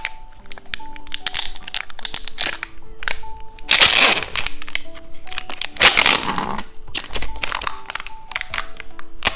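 Plastic wrapper of a cheese-stick candy crinkling and crackling as it is handled and opened, with two louder tearing or crumpling bursts about four and six seconds in. Light background music plays throughout.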